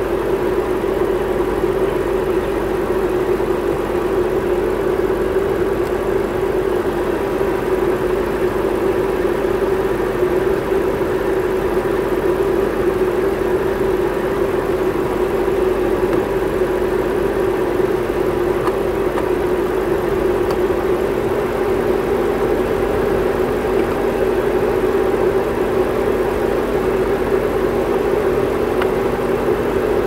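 BMW 7 Series E66 engine idling steadily with the air conditioning running on high, a constant hum that does not change.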